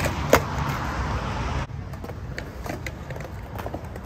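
Skateboard rolling on concrete, with one sharp, loud clack of the board hitting the ground about a third of a second in. The rolling stops abruptly a little under two seconds in, followed by a few lighter clacks.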